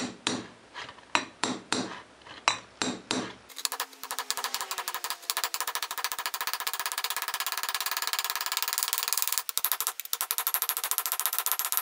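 Ball-peen hammer tapping a new ball bearing into a Polaris ATV rear axle carrier, driving on the outer race directly and through a 2-inch black iron pipe. There are separate light taps at first, then from about three seconds in a fast, steady run of strikes with a metallic ring.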